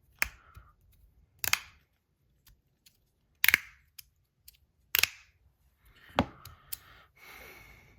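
Magnus Rail V2 fidget slider snapping back and forth, a sharp click at each end of its travel. The clicks come about every one and a half seconds, with fainter ticks between them.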